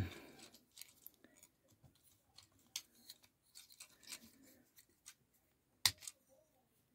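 Plastic parts of a Studio Series 86 Brawn Transformers figure being handled and worked into place, giving faint scattered clicks and rubbing, with one sharper click near six seconds in.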